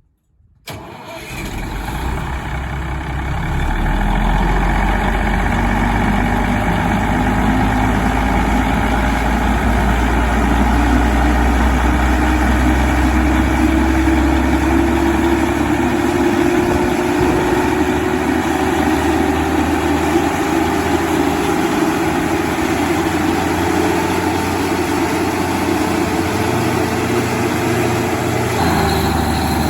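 Diesel engine of a 400 kW Cummins/Onan generator set running. It comes up over the first few seconds, then runs steadily, with a faint tone slowly rising in pitch.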